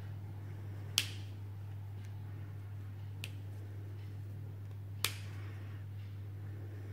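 Plastic linking cubes snapping together: a sharp click about a second in, a faint one near the middle and another sharp click about five seconds in, over a steady low hum.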